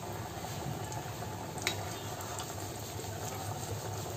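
Chhena jalebi deep-frying in medium-hot ghee in a steel kadhai: a steady sizzle and bubbling of the oil, with a single sharp click about a second and a half in.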